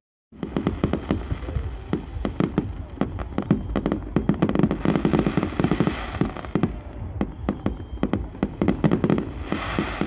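Aerial fireworks bursting overhead: a rapid string of sharp crackling pops and bangs, many a second, over a low rumble, starting abruptly just after a brief silence.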